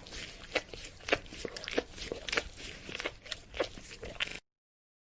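Dog licking: wet, irregular licks and smacks, about two a second, that cut off abruptly about four seconds in, leaving dead silence.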